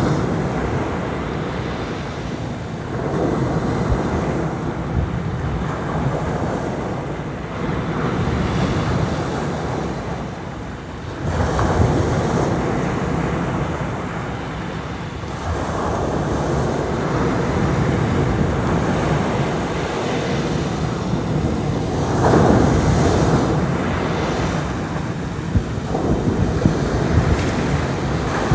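Heavy surf stirred up by an approaching typhoon, waves breaking on the shore in surges every few seconds over a constant rush of water, with wind buffeting the microphone.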